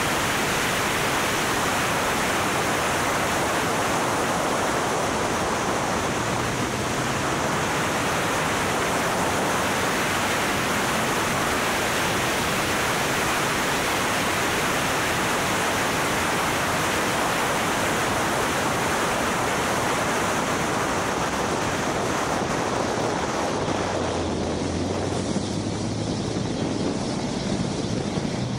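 Heavy wind rush over the microphone of an open track car at speed, with the engine faint beneath it. Near the end the wind noise eases and the engine note comes through, rising in pitch.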